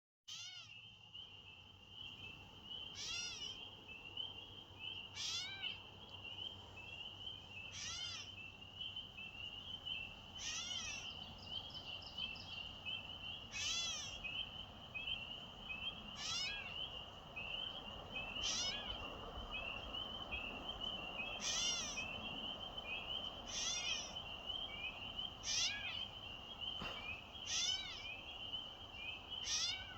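Gray catbird giving its cat-like mewing call over and over, one slurred, down-arching call about every two to three seconds. A continuous high, wavering trill runs behind the calls.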